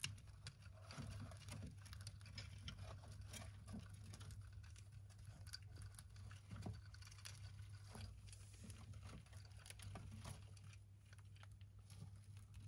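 Faint, scattered clicks and rustles of young dwarf hamsters scrabbling in wood-chip bedding and nibbling food in a plastic dish, over a steady low hum.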